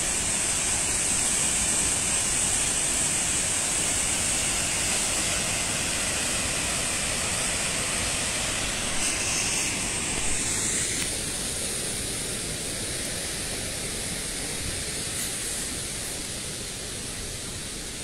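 Steady rush of water from a tall waterfall, the Ouzoud Falls, falling onto rock. It grows quieter over the last several seconds.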